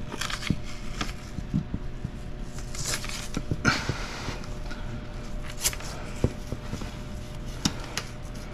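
Masking tape being pulled off the roll in short rips and pressed down onto masking paper, with scattered taps and paper rustling over a faint steady hum.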